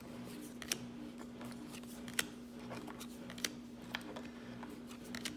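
Trading cards being flipped one at a time: five sharp, short card snaps at irregular gaps of about a second, over a steady low hum.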